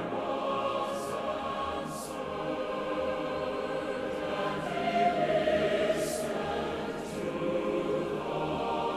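Choral film music: a choir singing sustained chords.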